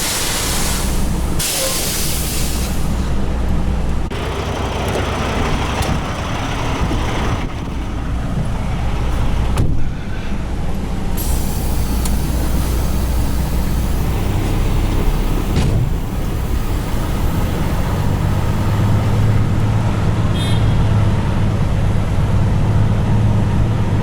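Semi truck's diesel engine running steadily, with two hisses of released air in the first three seconds, typical of the truck's air brakes. The engine note grows stronger in the second half.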